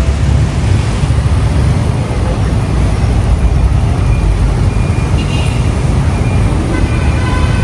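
Road traffic and wind noise heard while riding a motorbike: a steady low rumble.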